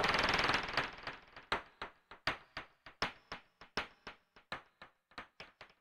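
Experimental electronic music from a Casio CZ-1000 synthesizer. A dense noisy texture stops under a second in, leaving a run of sharp synthesized clicks, two to four a second at uneven spacing, that grow fainter toward the end.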